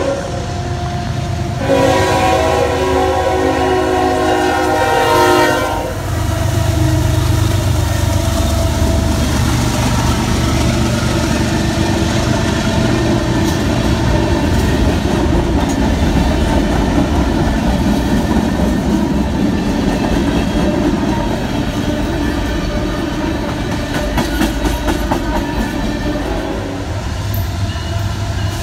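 Freight train locomotive horn sounding a chord, a short blast ending about a second in and then a longer blast of about four seconds. The freight train then runs past over the crossing: a steady rumble with the wheels clicking over the rail joints.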